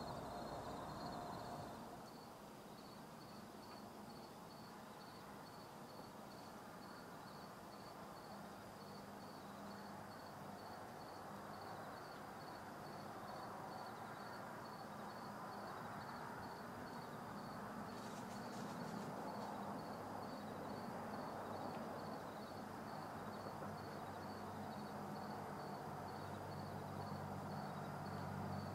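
Faint insect chirping, a high-pitched even pulse that keeps on steadily over a soft outdoor hiss.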